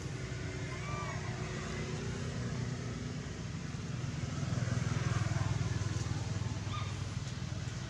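Low, steady engine rumble of a motor vehicle running nearby, swelling about halfway through, with a few faint short chirps near the start.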